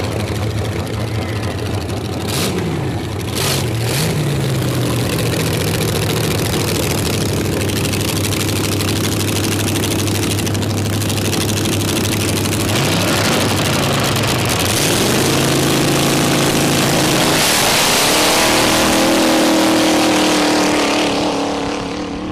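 Twin-engine dragster with open exhaust headers running at idle, with quick throttle blips early on and again midway. It then revs up and holds high revs in a long, loud stretch near the end, as the dragster does a burnout.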